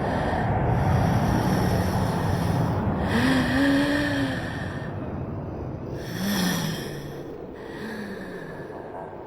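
Anime sound effect for the giant Lilith in Neon Genesis Evangelion: a heavy low rumble, loudest in the first three seconds, with deep moan-like tones that waver up and down, the longest about three seconds in and shorter ones near six and eight seconds.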